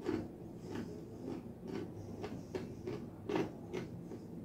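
A mouthful of dry, hard fried chickpeas being chewed, with irregular crunches a few times a second, the loudest a little over three seconds in.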